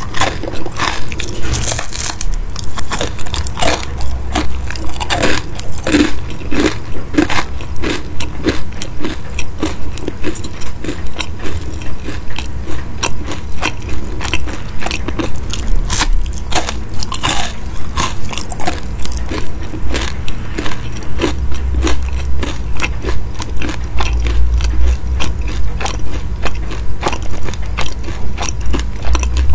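Close-miked chewing of crisp, flaky baked pastry: crunching and crackling bites broken down in a steady rhythm of a little under two chews a second.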